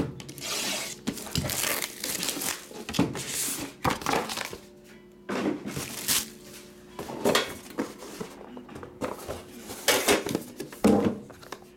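Plastic shrink-wrap crinkling and tearing as it is stripped from a trading-card box in repeated bursts, then, about ten seconds in, a few sharp knocks and scrapes as a metal card tin is handled and its lid lifted off.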